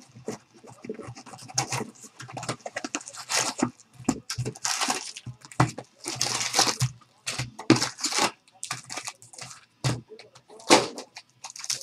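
Baseball card box and foil pack wrappers being torn open and handled: irregular tearing, crinkling and rustling with short sharp scrapes.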